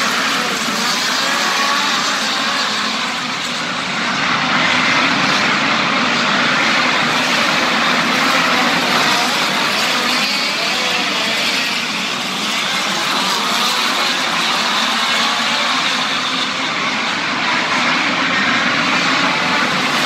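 A field of midget race cars running flat out around a dirt oval. Several engines overlap in a continuous loud drone, their pitch rising and falling as the cars pass and back off through the turns.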